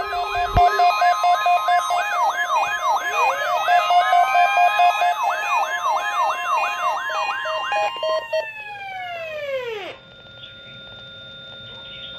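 Several sirens sounding together, their pitch sweeping up and down a little over twice a second over steady tones, with another siren winding up about three seconds in. Near the end they all wind down and fall away, leaving faint steady tones.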